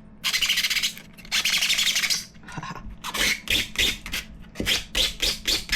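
120-grit sandpaper scrubbing across a 3D-printed plastic part with an annoying scratchy rasp. It starts with two long slow strokes, then from about three seconds in goes into quick back-and-forth strokes at about three a second, roughening the surface so glue will key in.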